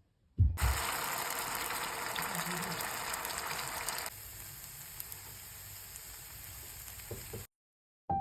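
Food sizzling in hot oil in a frying pan, a steady hiss that begins just after a short knock, turns quieter about four seconds in and cuts off suddenly near the end.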